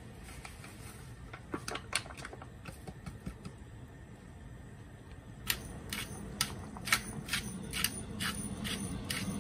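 Pepper mill being twisted over a pan, grinding with a run of sharp clicks about two a second through the second half. Earlier come a few scattered clicks and taps as curry powder is tipped in from its packet and stirred, over a low steady hum.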